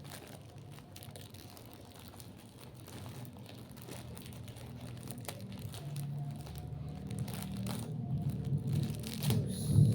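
Parcel packaging being torn open and crinkled by hand, with scattered crackles and rips. In the second half a low hum builds up and grows louder toward the end.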